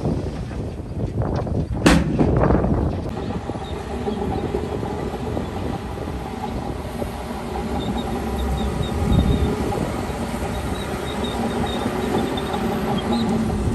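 Heavy diesel earthmoving machinery running steadily, with a sharp loud bang just under two seconds in, preceded by a few lighter knocks.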